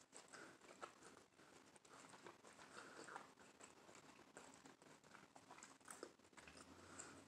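Faint chewing and mouth sounds of someone eating toasted bread with avocado and fried egg: soft, irregular small clicks and smacks.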